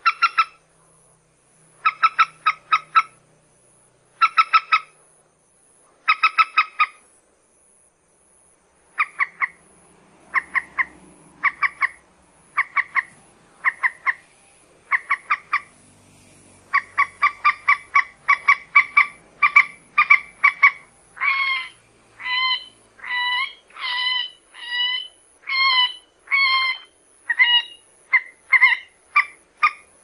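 Common moorhen calling: groups of three to six short, quick notes every second or two, which run together into an almost unbroken series in the second half, with longer calls that bend in pitch about two-thirds of the way through.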